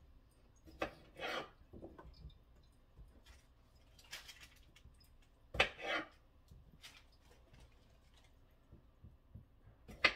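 Sporadic kitchen handling sounds: a few sharp clicks and knocks, each followed by a short scraping rustle, like dishes and utensils being handled on a counter.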